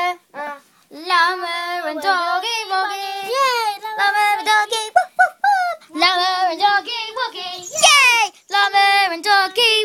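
A child singing a wordless tune: held notes with bends and short breaks, and a high swooping glide about eight seconds in.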